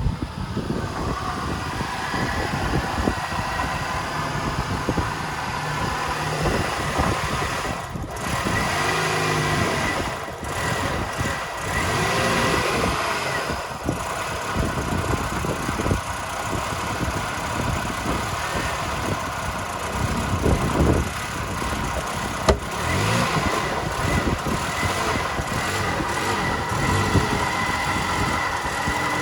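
Toyota Yaris 1.3 VVT-i four-cylinder petrol engine idling and being revved up and down several times. The owner says this engine hesitates and misfires and that no fault codes were found. There is one sharp click about two-thirds of the way through.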